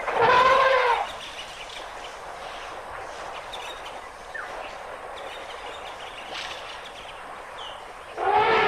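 Elephant trumpeting: a loud, pitched blast about a second long at the start, then, after a quieter stretch of outdoor background with faint bird chirps, another trumpet begins near the end and carries on.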